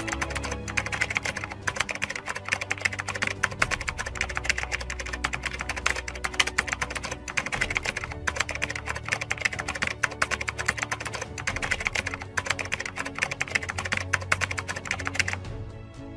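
Typing sound effect: rapid key clicks with a few brief pauses, over soft background music. The clicking stops about a second before the end.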